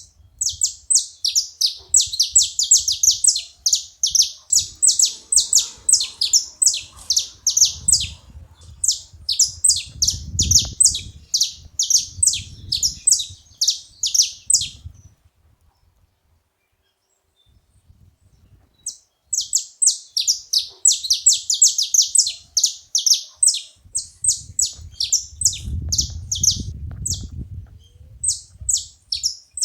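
Several saffron finches chirping and singing together in rapid, high, overlapping notes. The chirping stops about halfway through for a few seconds of near silence, then starts up again, with a low rumble underneath twice.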